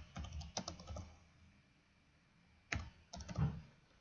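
Typing on a computer keyboard: a quick run of keystrokes for about the first second, then a pause and a few more clicks near the end.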